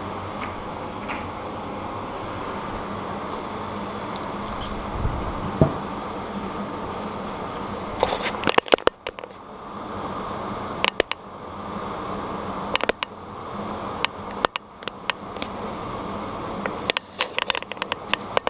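Steady mechanical hum with, from about eight seconds in, a scattered run of sharp clicks and clinks from bicycle cassette parts and tools being handled.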